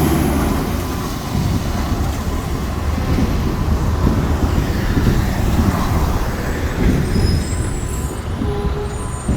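Heavy diesel rumble of a fire truck moving through the street, with faint high-pitched squeals near the end.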